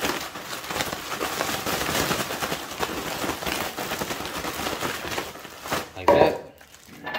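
Plastic zip-top bag being shaken hard, rustling and crinkling while the dried beef jerky pieces inside rattle and knock together, coating them in Cajun seasoning. A brief louder thump comes about six seconds in, and it is quieter after that.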